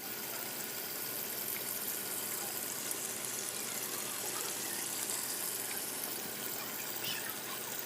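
Water splashing and trickling steadily in a small homemade fountain fed by a mini electric pump.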